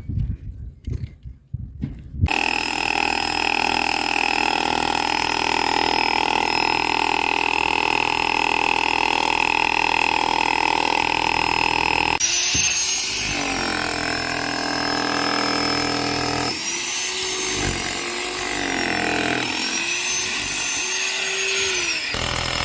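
Electric power tool starting about two seconds in and running at a steady high whine; from about halfway its pitch dips and recovers again and again as it bites under load, cutting into the wall for the conduit down-pipes.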